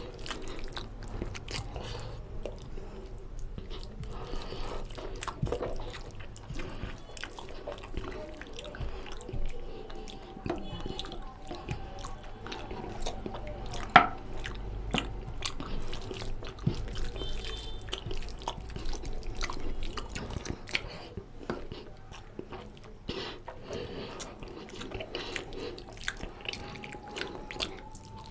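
A hand mixing rice with oily mutton curry on a plate, and the chewing and mouth noises of eating it. It is a run of many small wet clicks, with one sharp knock about halfway through.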